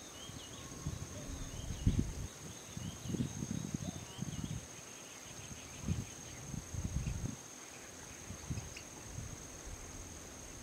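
Forest ambience: a steady high-pitched insect drone with a run of short bird chirps in the first few seconds. Intermittent low rumbles are the loudest thing heard.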